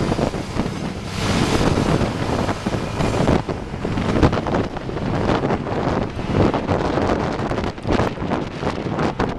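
Wind buffeting a moving microphone over a steady low rumble of road traffic, with a red double-decker bus driving just ahead.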